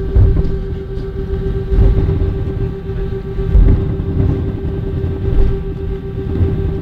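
Airliner's jet engines running at high power during the takeoff roll, heard inside the cabin: a steady whine over a deep, uneven rumble as the plane speeds along the runway.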